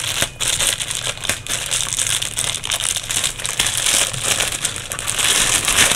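Clear plastic bag crinkling and rustling as it is pulled off a soundbar by hand: a continuous crackle of many small crinkles.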